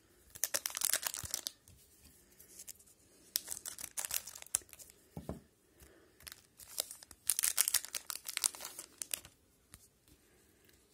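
A 2019-20 O-Pee-Chee hockey card pack's wrapper being torn open and crinkled by hand, in three bouts of crackling, with a soft knock about halfway through.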